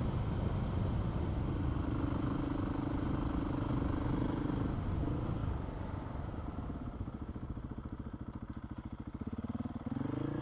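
Motorcycle engine running with road and wind noise, then easing off and dropping to a slow, steady idle for the last few seconds as the bike pulls up.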